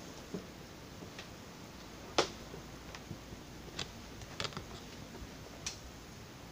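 Someone creeping slowly across a wooden floor: a few scattered sharp clicks and light taps over a faint steady hiss, the sharpest about two seconds in.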